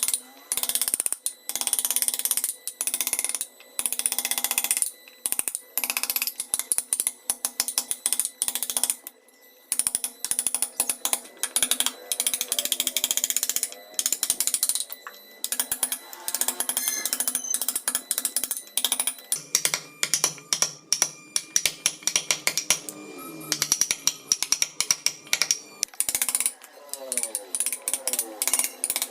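A carving tool cutting and scraping wood in short, repeated strokes, with many sharp clicks and brief pauses between strokes.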